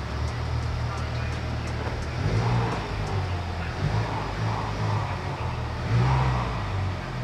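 Honda Civic Type R's 2.0-litre turbocharged four-cylinder running through a Spoon N1 cat-back exhaust, a steady low idle with a few short swells of throttle.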